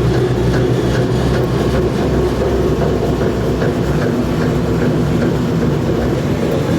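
Screw-drive wheelchair lift running as the cab travels upward: a steady motor hum with the lightweight cab rattling.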